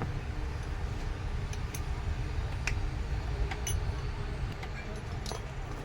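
A few scattered light clicks and taps from working on a starter motor being taken apart, over a steady low background rumble.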